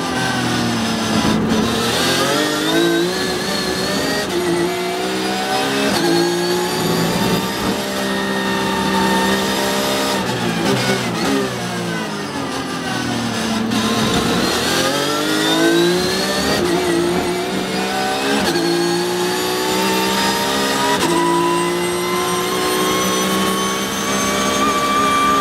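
Porsche 911 GT3 Cup race car's flat-six engine heard from inside the cockpit at racing speed. Its pitch drops as the car brakes and downshifts for corners, once at the start and again from about 10 to 14 seconds in, then climbs in steps through upshifts as it accelerates out. Near the end it pulls steadily higher down a long straight.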